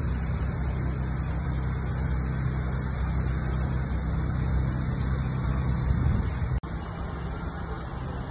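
Steady city traffic rumble, a low continuous drone of passing road vehicles. It drops out for an instant about two-thirds of the way through.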